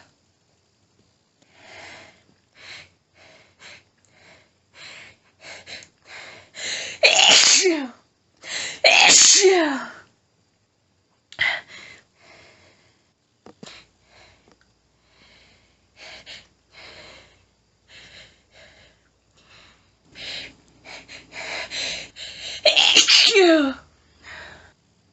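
A woman's sneezing fit: quick, faint hitching and panting breaths between three strong sneezes, two close together in the first half and one near the end, each sneeze ending in a falling pitch.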